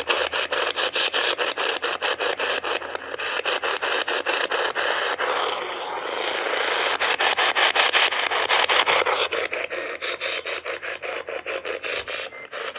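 Static from a radio receiver: a steady hiss with rapid, regular clicking running through it.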